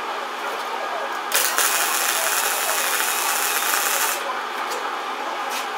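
Wire-feed (MIG) welder arc crackling as a weld is run on a sheet-steel rust repair panel for about three seconds, starting a little over a second in. Two brief blips of the arc follow near the end.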